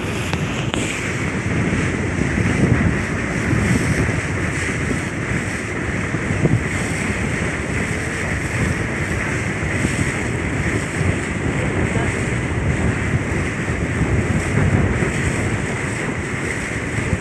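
Aboard a moving boat: the engine runs steadily under rushing water, with wind buffeting the microphone.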